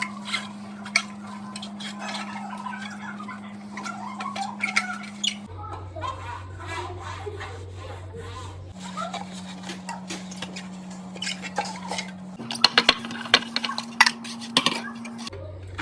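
Dishes and kitchen containers clinking and clattering as they are handled, with a denser run of clatter near the end. A steady low hum runs underneath and jumps in pitch a few times.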